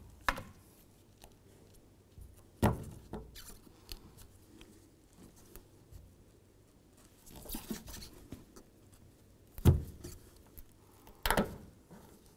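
Plastic trim tool prying and scraping under chrome emblem letters held on with double-sided tape, giving a few scattered sharp clicks and knocks, the loudest about ten seconds in.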